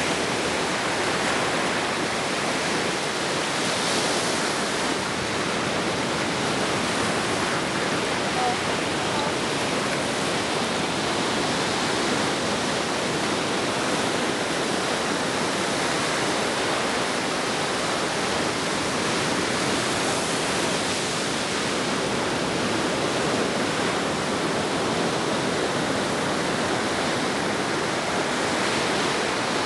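Ocean surf washing steadily onto the beach, swelling slightly about four seconds in and again near twenty seconds.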